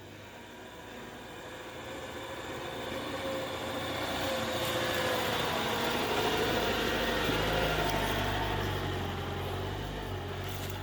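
A motor vehicle going by: engine and road noise build to a peak about six to eight seconds in, then ease off.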